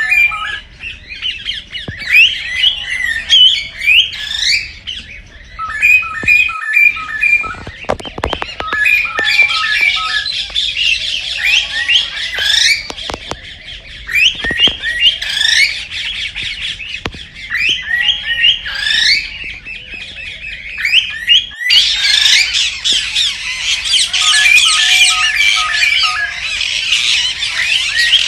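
Several cockatiels chirping and squawking, with quick repeated whistled notes that thicken into a dense chorus about two-thirds of the way through.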